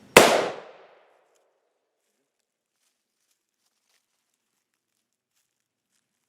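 A single rifle shot: one sharp, loud crack with a short tail that dies away within about a second.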